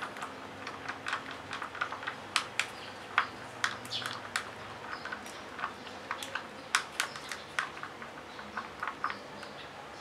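Stirring stick clicking and scraping against a thin plastic cup while Swancor resin is mixed with its hardener: irregular sharp taps, several a second, a few of them louder.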